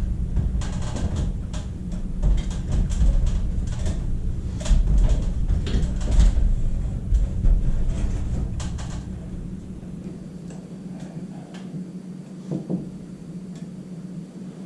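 Scattered knocks and clunks of carpentry work, with boards and tools being handled, over a low rumble that fades out about ten seconds in.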